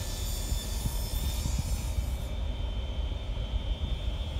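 Table saw running, its blade ripping through a scrap of plywood to trim one end square. The high, hissing cutting noise stops about two seconds in, and the saw then runs on free.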